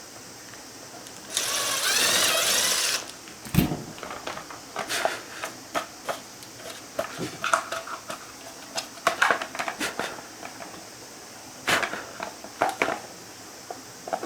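A small electric motor runs for about a second and a half, then stops. Scattered clicks and knocks of parts being handled follow.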